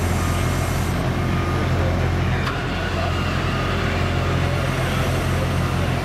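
Avant 528 compact loader's diesel engine running steadily at working speed with a low, even drone, driving the hydraulics of its backhoe attachment as it digs.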